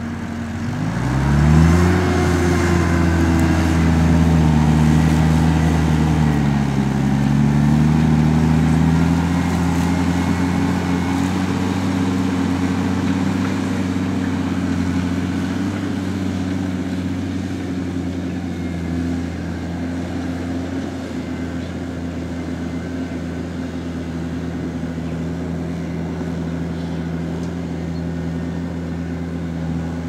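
Fendt Vario 820 tractor's six-cylinder diesel engine working under load while pulling a five-furrow plough through wet ground. Its pitch climbs over the first two seconds, the loudest moment, dips briefly around six seconds in, then settles into a steady run.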